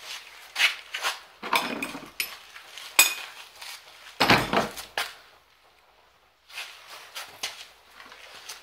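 Metal hand tools and bolts clinking and clattering as they are picked up and handled. A run of sharp clanks over the first five seconds, the heaviest clatter a little after four seconds in, then a short pause and lighter ticks.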